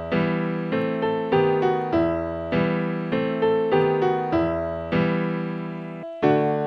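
Background keyboard music: piano chords struck at an even pace, about one every 0.6 seconds, each fading before the next, with a brief stop about six seconds in.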